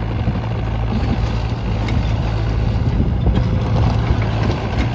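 Yanmar diesel engine of an IHI 65NX mid-sized excavator running steadily with a low, even hum, getting slightly louder just as it begins.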